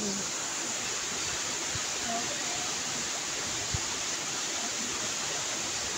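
Steady, even rushing of a waterfall pouring into a rock pool, with one soft bump a little past halfway.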